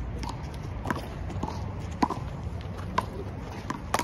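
Handball rally: a rubber handball slapped by hand and smacking off the concrete wall about once a second, the loudest smack about two seconds in, with sneakers scuffing on the concrete court.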